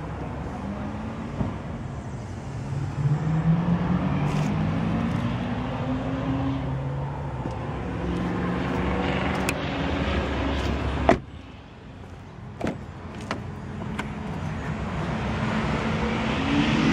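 Car engine running with a wavering pitch, and a car door shutting with one sharp thump about eleven seconds in, followed by a few lighter clicks.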